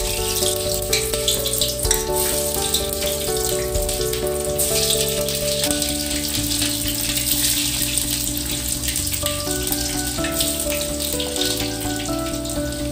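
Frozen cheese-and-corn nuggets sizzling and crackling as they deep-fry in hot oil in a kadai, more pieces going in over the seconds. Background music plays over it.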